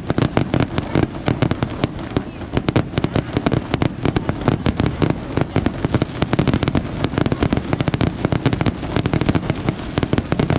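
Fireworks display: a dense, unbroken barrage of rapid bangs and crackles, many a second.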